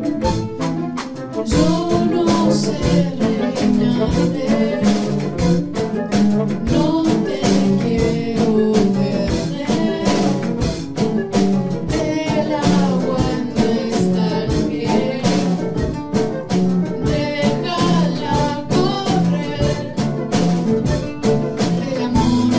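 A student band plays live, recorded on a handheld recorder in a classroom. A drum kit keeps a steady beat under bass, piano, keyboard and guitars, with a melody line carried above.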